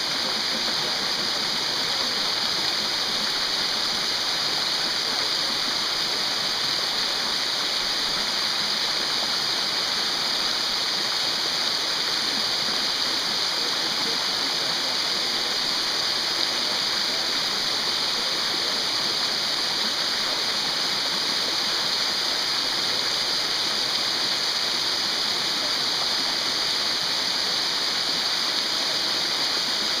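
Waterfall pouring over rock, a loud steady rush of water that does not change.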